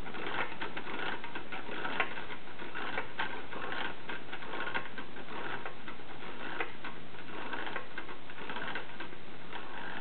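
Homemade tin-can Stirling engine running, its wire crank linkage and flywheel making a fast, steady clatter of light mechanical clicks. It keeps running on its stored heat after the propane torch has been taken away.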